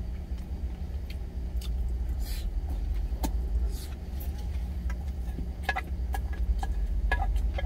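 Truck engine idling with a steady low hum. Over it come chewing and scattered light clicks of wooden chopsticks against a stainless steel bowl.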